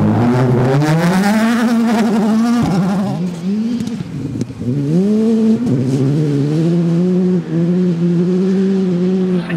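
Rally car engines accelerating hard at full throttle. The pitch climbs and then drops sharply at each gear change, twice in the first half. After that the engine holds at high revs with short dips toward the end.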